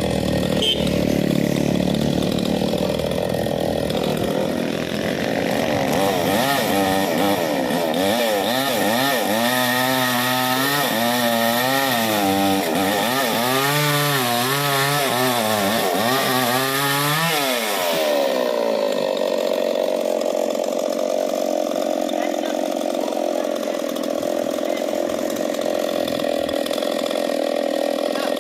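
Chainsaw running and cutting wood. Its pitch wavers rapidly up and down for a stretch in the middle, then settles to a steadier, higher pitch.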